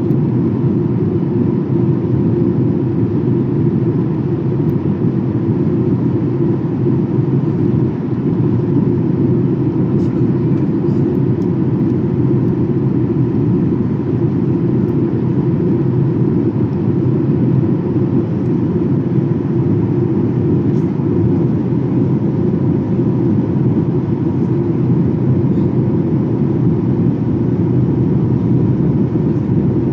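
Steady cabin noise of a Boeing 737-800 in its climb, heard inside the cabin at a window seat over the wing: the rush of airflow and the drone of its CFM56-7B turbofan engines, with a faint steady hum running through it.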